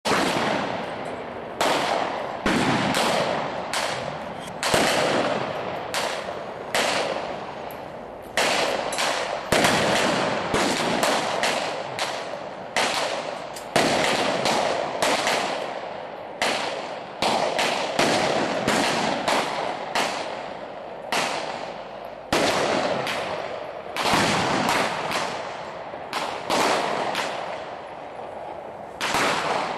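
Gunfire from several shooters' handguns and rifles: an irregular string of sharp shots, often one or two a second and sometimes overlapping, each ringing out and dying away over about a second.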